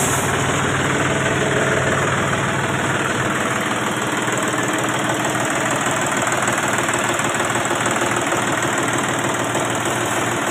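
John Deere 5310 tractor's three-cylinder diesel engine idling steadily.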